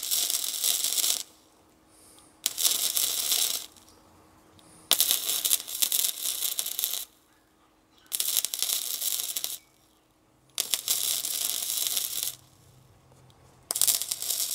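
Gasless flux-core wire welder (Hitbox) laying short runs of weld on steel: a crackling sizzle in about six bursts of one to two seconds each, with brief pauses between them.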